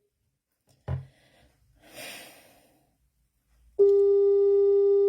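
Ringback tone of an outgoing phone call ringing out unanswered. A steady two-second ring tone starts again near the end, after a soft knock about a second in and a faint rustle.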